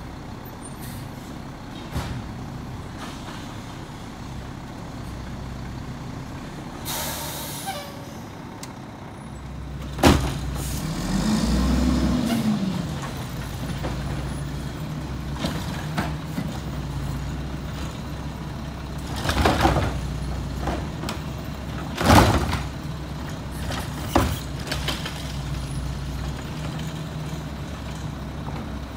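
Mack MR garbage truck's diesel engine running, with one rise and fall in revs as the truck pulls forward about ten seconds in. Loud, sharp hisses of air from the air brakes come several times in the second half.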